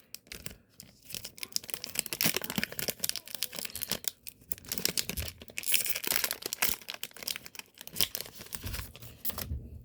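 A trading card booster pack's wrapper being torn open and crinkled, a dense crackling that comes in spells with short pauses.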